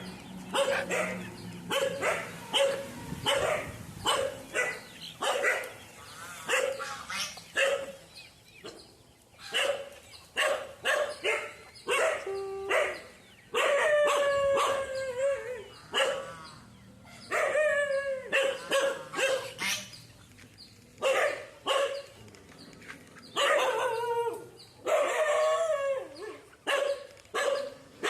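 A dog barking over and over, short barks coming about two a second at times, mixed with some longer yelping calls that fall in pitch.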